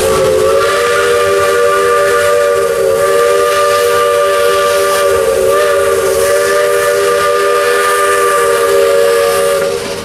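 A steam locomotive's chime whistle blows one long blast of several notes at once. It holds for about nine and a half seconds, with a slight waver in pitch about halfway. It is the signal that the train is about to cross a trestle.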